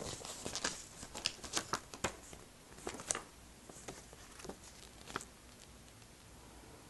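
Paper inserts from a Blu-ray case being handled and shuffled through: quick rustles and taps, thick in the first three seconds, thinning out, the last a little past five seconds in.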